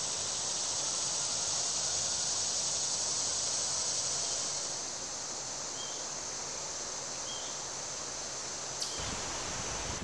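Steady chorus of summer insects, an even high drone that eases a little about halfway through, with two faint short chirps and a low rumble coming in near the end.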